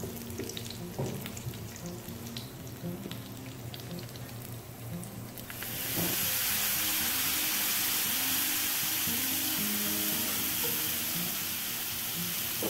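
Cashews and raisins sizzling lightly in hot coconut oil with scattered pops. About six seconds in, a wet ground masala paste is poured into the oil and it jumps to a loud, steady sizzle.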